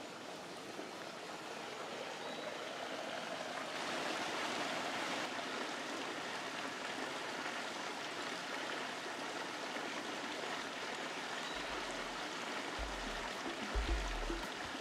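Steady rushing of a small creek's flowing water, a little louder from about four seconds in, with a few low bumps near the end.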